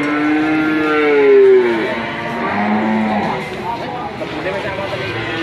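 Cattle mooing: two long moos overlap in the first two seconds, the higher one loudest and falling in pitch as it ends, then a shorter, lower moo follows about halfway through.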